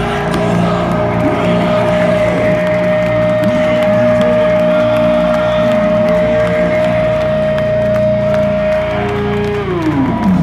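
Rock band's amplified electric guitar ringing out in sustained feedback at the end of a song, one high tone held steady over a low drone while the crowd cheers and whoops; near the end the tones slide down in pitch.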